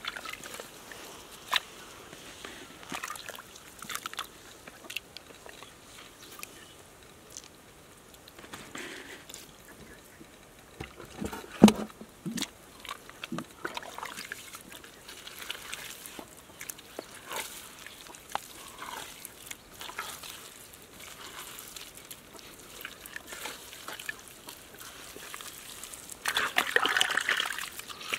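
Bare hands digging and scooping in wet mud, squelching and sloshing, with scattered small clicks, one sharp knock about twelve seconds in, and a louder wet slosh lasting a couple of seconds near the end.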